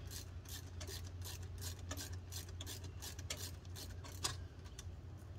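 A hand tool working on a truck's Cummins ISX engine makes a run of sharp metallic clicks, about four a second, with the loudest near the end; the clicking stops about four seconds in. A steady low hum runs underneath.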